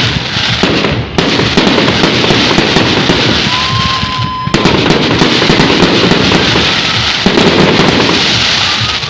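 Fireworks display: a dense, continuous barrage of crackling bangs, with a short steady high whistle about three and a half seconds in.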